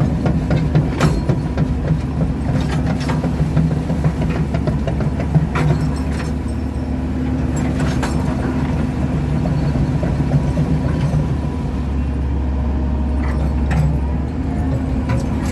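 Hydraulic excavator's diesel engine running steadily as the machine travels, with scattered sharp knocks over the engine's drone.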